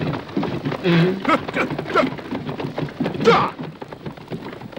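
Horses galloping and a horse-drawn war chariot rattling along, a steady noisy rush of hooves and wheels. Several short pitched calls sound over it, bunched about a second in and again past the middle.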